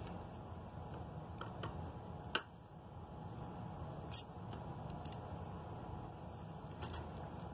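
A few small, irregular clicks and taps, the loudest about two and a half seconds in, from fingers handling a small plastic train ornament, over a low steady hum.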